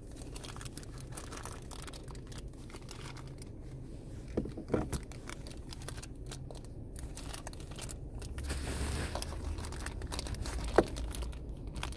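Plastic rustling and crinkling as a replacement shift knob is handled and worked down onto a car's shift lever, with two light clicks about four and a half seconds in and one sharp click near the end.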